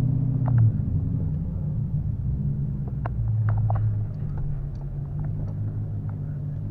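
A 2014 Dodge Challenger R/T's 5.7-litre Hemi V8 running at low speed, heard from inside the cabin as a steady low hum that swells and eases slightly, with a few light clicks.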